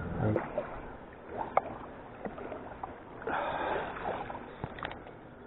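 Light water sounds against an inflatable kayak, with a few short clicks and knocks and a brief swell of splashing about three seconds in.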